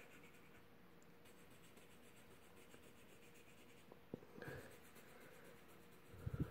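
Faint scratching of a colored pencil shading on paper. There is a single light click about four seconds in and a couple of soft low knocks near the end.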